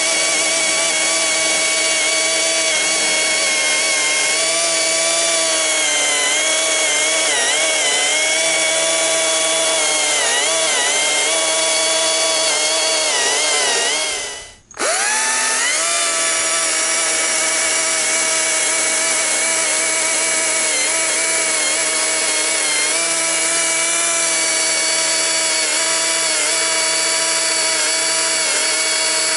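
Stihl MSA 200 battery-powered chainsaw cutting into a large oak log. Its electric motor and chain make a steady whine whose pitch dips and wavers as the chain loads up in the cut. The sound fades out about halfway through and comes straight back, running steady.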